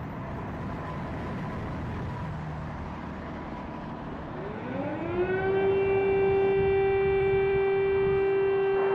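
A steady low rumble, then about halfway through a civil-defence air-raid siren winds up, rising in pitch, and settles into a loud, steady wail.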